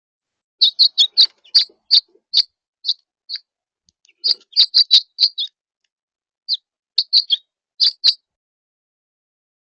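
A songbird calling close by with short, sharp chirps. A quick run of about ten notes slows toward the end, a second quick run follows about a second later, and a few more chirps come near the end.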